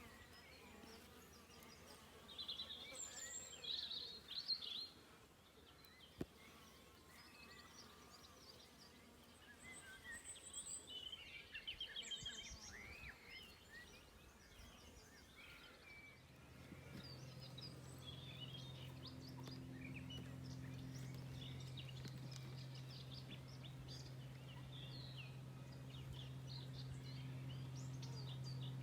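Wild birds chirping and calling in short bursts of song over a quiet outdoor background. About halfway through, a steady low hum joins and continues.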